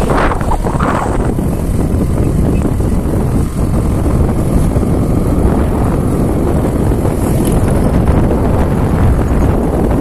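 Wind buffeting the microphone: a loud, steady low rumble.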